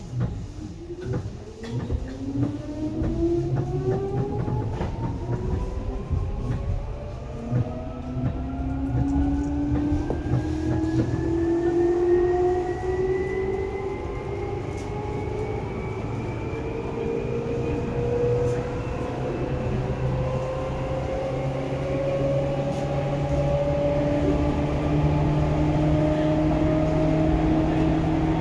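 Seibu 2000 series electric train pulling away and accelerating, heard from inside the car near the line breaker. The traction motor and gear whine rises steadily in pitch over the low rumble of the wheels on the rails.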